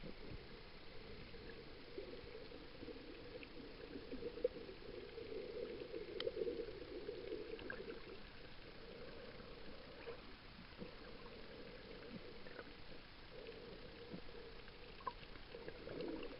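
Muffled underwater ambience heard through a camera's waterproof housing: a steady low wash of moving water with a few faint scattered clicks.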